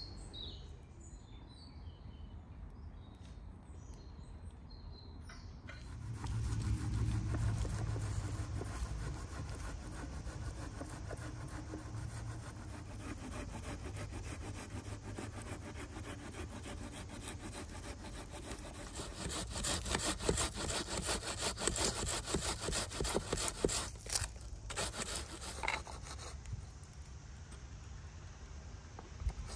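Rapid rasping strokes of food being grated on a metal box grater, starting about six seconds in and growing stronger later on.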